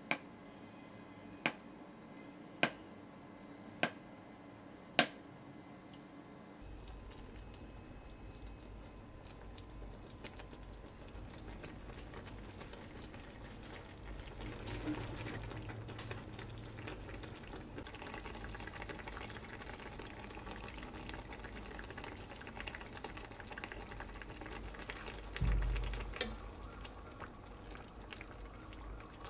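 A knife chopping down through a block of tofu onto a wooden cutting board, five sharp taps about a second apart. Then a pan of braised kimchi with pork belly and tofu simmering and bubbling steadily, with a low thump near the end.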